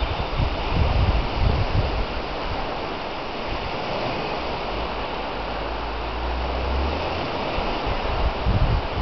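Wind buffeting the microphone in low gusts, strongest in the first two seconds and again near the end, over a steady hiss of wind and small waves breaking on a lakeshore.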